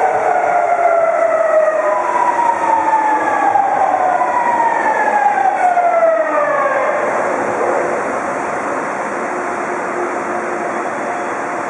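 Alstom Metropolis metro train braking into a station: its traction motors whine in several tones that fall steadily in pitch as it slows. About seven seconds in, the whine dies away, leaving a steady rushing rumble of the train rolling slowly toward a stop.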